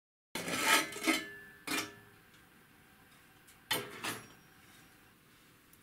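Metal clattering as the sheet-metal cover of a Bendix 18804-1A aircraft compass coupler is lifted off and the metal chassis is handled and stood on end on the bench: a burst of clatter with ringing, a second knock a moment later, and another clatter a little past halfway.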